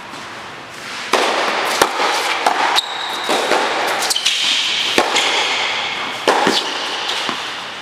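Tennis rally on an indoor hard court: a handful of sharp racket-on-ball hits and ball bounces a second or two apart, with high squeaks from tennis shoes on the court surface in between.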